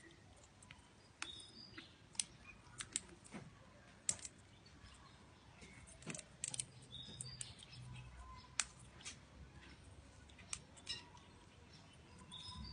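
Wild birds chirping briefly three times, high and short, among scattered sharp clicks and taps.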